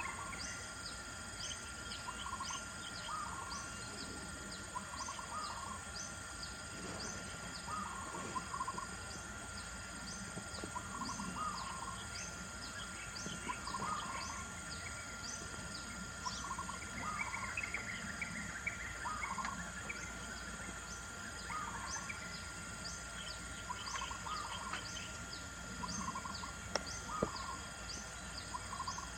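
Birds calling repeatedly: a short mid-pitched call about every second and a half and a thin, high, downward call more often, over a steady high-pitched drone.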